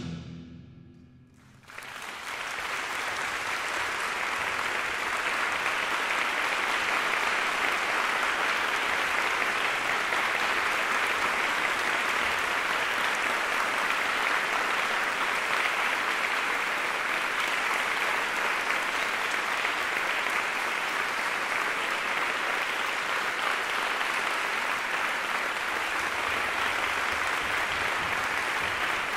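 The last chord of a mallet percussion ensemble dies away within the first second. Then, about two seconds in, the audience breaks into steady applause that continues throughout.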